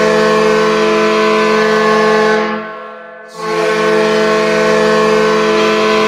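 Hockey arena goal horn of the New Jersey Devils sounding two long, steady blasts: the first dies away about two and a half seconds in, and the second starts just after three seconds in.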